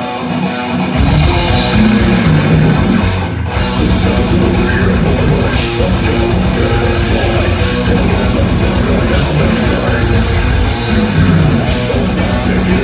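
Live heavy metal band playing loud: distorted electric guitar over drums, with a short dip about three seconds in.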